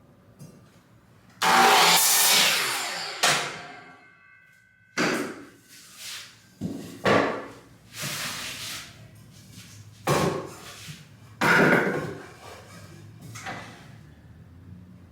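Power saw cutting wooden boards to length, a series of short cuts. The first and longest comes about a second and a half in, and the blade whines as it spins down after it. Knocks of wood being handled come between the cuts.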